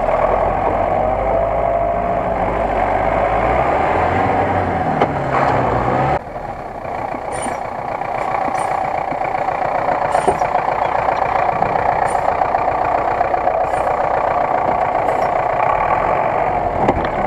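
GAZ-66 off-road truck engine running under load as the truck crawls over a dirt mound, its pitch rising briefly about five seconds in. After a sudden drop in level about six seconds in, it runs on steadily and more distant.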